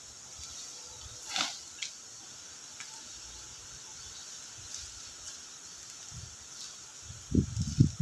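Steady high insect drone, with a brief swishing rustle about a second and a half in and a cluster of low thumps near the end.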